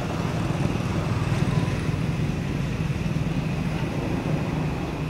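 Steady low rumble of a motor vehicle engine running, with a faint steady high hum above it.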